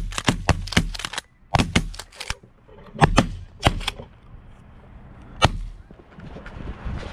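Shotguns from several hunters firing a rapid, ragged volley at a flock of snow geese: many overlapping shots through the first four seconds, then one last lone shot about five and a half seconds in.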